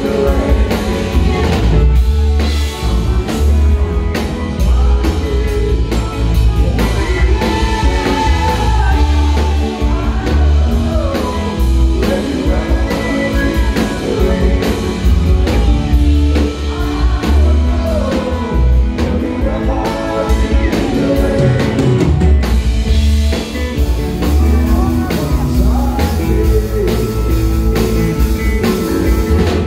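Live rock band playing a song: drum kit and heavy bass under a lead vocal singing.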